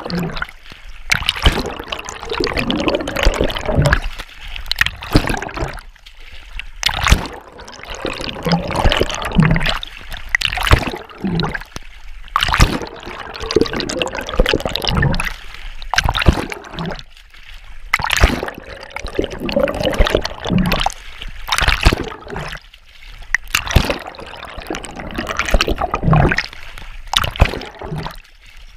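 Open-water swimming strokes heard from a camera at and under the lake surface: repeated splashes and underwater bubbling and gurgling, surging about every one to two seconds.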